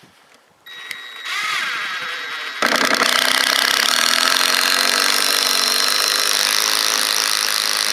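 Ryobi cordless drill driving a 4½-inch Hillman Power Pro wood screw into a green treated 4x4. The motor starts with a soft whine about a second in, then runs loud and steady from about two and a half seconds in as the screw goes in.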